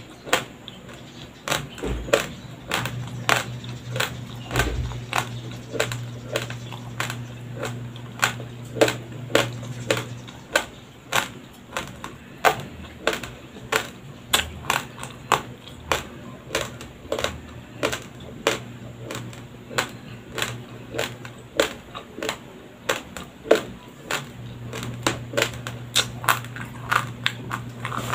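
Close-miked crunching of raw, uncooked white rice grains being chewed, sharp crunches coming about two or three a second, over a faint low hum.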